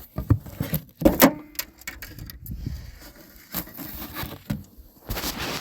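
Clicks, knocks and rattles of a Mazda B4000 pickup's hood latch being released and the hood worked by hand, the new latch spring under test; the loudest knocks come about a second in, with a rougher burst of noise near the end.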